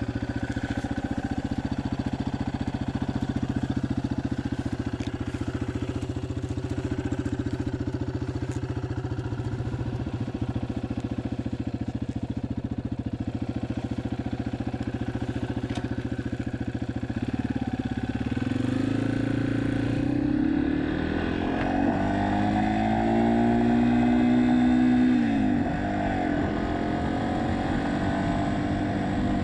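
Yamaha XT250's single-cylinder four-stroke engine running steadily under way. About two-thirds of the way in it revs up, holds the higher note for a few seconds, then drops back down and settles.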